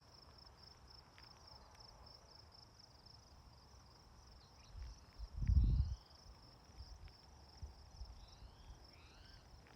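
A high, steady, finely pulsing insect trill, with a few short slurred bird chirps in the second half. A low rumble about halfway through is the loudest thing.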